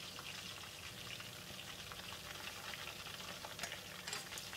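Battered fish fillet pieces deep frying in hot oil, a steady fine crackle and sizzle. A few light clicks come near the end.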